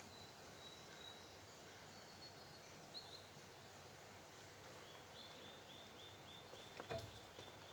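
Quiet outdoor ambience with faint, high bird calls: a thin drawn-out whistle at first, then a quick run of short chirps, about four a second, from about five seconds in. A single soft knock near the end.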